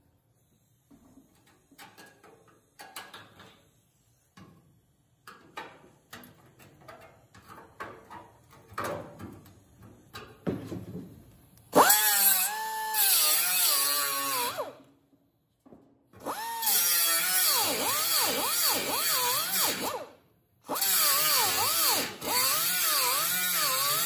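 A small handheld air cut-off wheel cuts the steel quarter panel of a 1930 Ford roadster body in three bursts starting about halfway in. Its high whine wavers up and down as the wheel bites into the metal and eases off. Before the cutting there are only faint scattered knocks and clicks.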